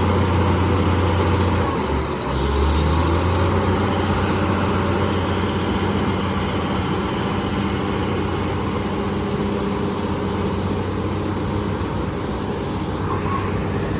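BEML BD355 crawler bulldozer's diesel engine running steadily at working revs over a broad mechanical clatter. About two seconds in, the engine note dips briefly and picks up again, and a faint high whine falls and rises with it.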